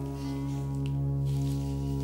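Background music: a steady, held low drone of Indian-style score, with no melody notes.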